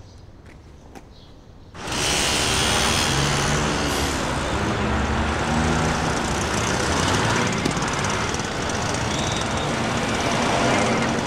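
A few faint clicks over quiet street ambience. About two seconds in, a small moped engine running amid city traffic cuts in suddenly and stays loud.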